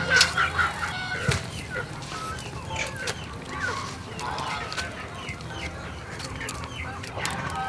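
Water poured from a metal bowl into a metal pot, splashing for about a second with a knock at the start and another near its end. Birds chirp repeatedly throughout.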